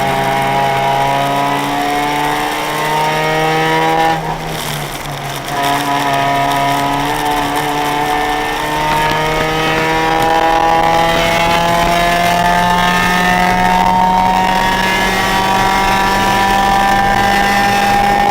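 Track car's engine under hard acceleration heard from inside the cabin, revs rising, then a brief lift or gear change about four seconds in, followed by a long, steady climb in revs.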